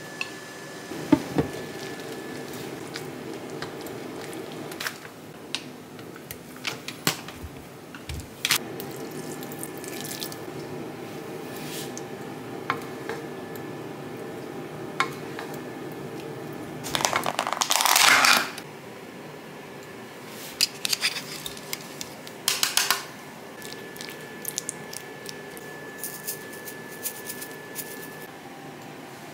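Kitchen cooking sounds: utensils clicking against a plate and a frying pan over a steady low hum. A louder rushing noise lasts about a second and a half, just past the middle.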